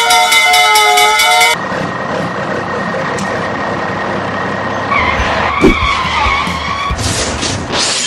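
A wavering siren that cuts off abruptly about a second and a half in, followed by a car-engine and tyre-skid sound effect with one sharp knock in the middle.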